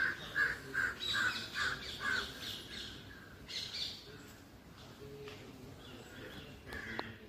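A crow cawing: a quick run of about six caws in the first two seconds, then a shorter, fainter call a little later.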